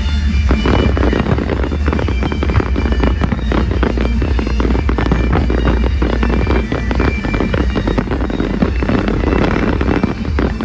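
Fireworks bursting and crackling in rapid succession over loud music with a heavy bass, the crackling growing denser about half a second in.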